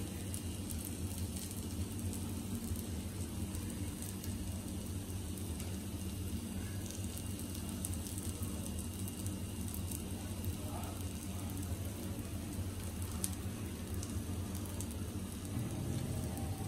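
Steady low hum with a light hiss over it, and a few faint ticks.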